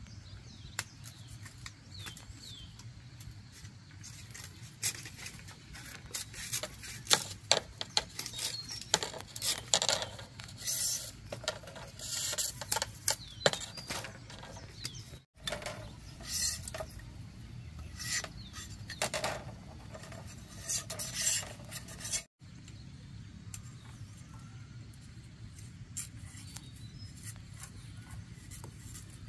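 A large knife splitting and shaving thin bamboo strips by hand: repeated short scrapes and sharp clicks of the blade drawn along the bamboo, busiest in the middle and sparser near the end.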